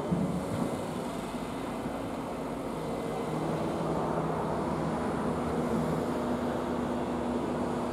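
Diesel engine of a truck-mounted crane running steadily while it lowers a concrete tetrapod onto a barge, with a low engine note that steps up in pitch about halfway through.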